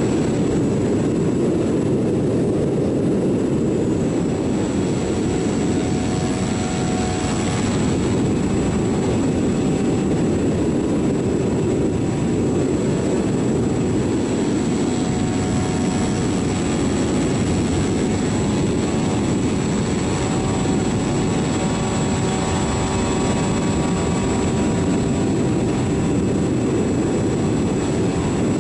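Model airplane's motor running steadily in flight, its faint whine under heavy wind rush on the onboard camera's microphone.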